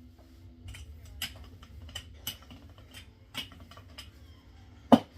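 Rolling pin working dough on a counter: irregular light clicks and knocks, with one much louder knock near the end.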